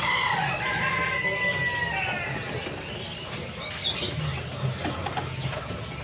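Many caged birds calling and chirping at once, with one long arching call over the first two seconds and shorter chirps scattered through the rest, over a steady low hum.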